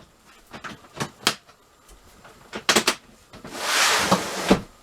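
A few sharp knocks and clicks of things being handled, then a rough scraping rush lasting about a second near the end.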